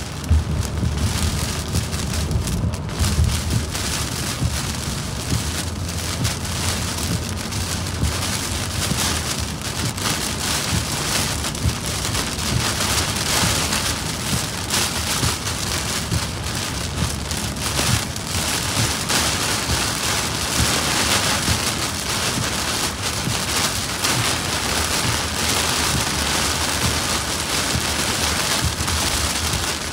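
Rain pelting a moving car's windshield and roof, heard inside the car, over a steady low rumble from the car on the wet road.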